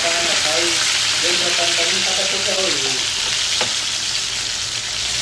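Masala-coated rohu fish pieces sizzling steadily in hot oil in a frying pan as they are turned over with a steel spoon. A single sharp tap comes a little past halfway.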